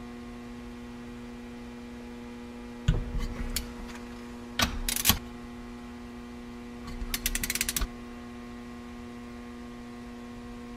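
Torque wrench ratcheting as the engine's cylinder bolts are run down and torqued: a sharp metal knock, a short burst of clicking, then a run of rapid ratchet clicks, over a steady electrical hum.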